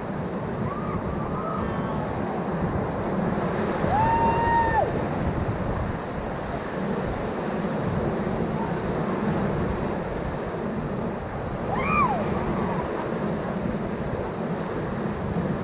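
River rapids rushing steadily, with wind buffeting the microphone. Two short high-pitched calls stand out, one held briefly about four seconds in and another rising and falling near the twelve-second mark.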